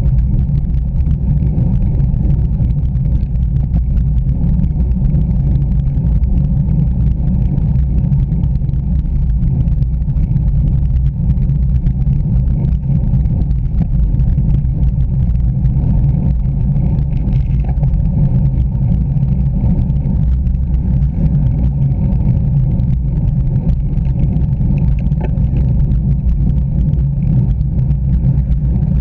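Steady wind buffeting and road rumble on a bicycle-mounted Garmin VIRB action camera's microphone as a road bike climbs at about 22 km/h. It is a loud, even, low rumble with no distinct events.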